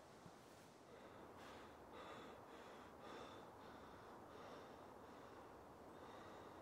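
A young man's faint, quick breathing through an open mouth, a breath about every half second.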